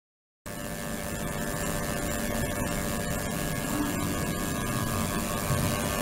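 Ultrasonic cleaning tank running: a steady hum made of many fixed tones over a hiss, starting suddenly about half a second in.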